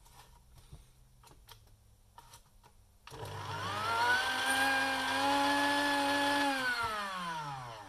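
Breville CG10 coffee grinder's electric motor starting after a few light clicks, about three seconds in. It spins up to a steady whine, runs for about three seconds, then spins down near the end.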